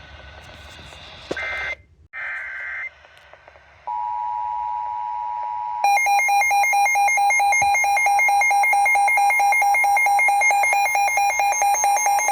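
EAS alert tones on a NOAA Weather Radio broadcast. Two short screeching digital data bursts of the SAME header come about a second in. A steady single-pitch alert tone follows about four seconds in, and from about six seconds on a receiver alarm sounds as fast, rapid electronic beeping, signalling an incoming severe thunderstorm warning.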